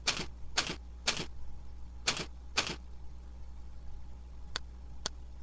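Computer keyboard keys struck one at a time, five separate keystrokes about half a second apart, then a few sharper single clicks, as a tool name is typed in. A steady low hum runs underneath.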